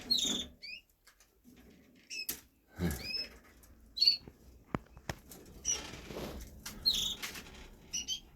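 Caged canaries giving short, high chirps, with wing flutters and small clicks and scratches of the birds moving about the cages.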